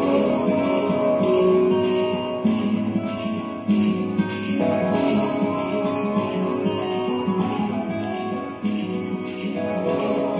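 Music led by strummed guitar, with a steady strumming rhythm over sustained chords.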